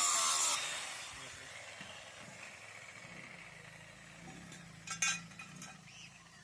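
Loud hissing metalworking noise cuts off about half a second in and dies away over the next second. A faint low hum remains, with a couple of sharp metal clinks about five seconds in.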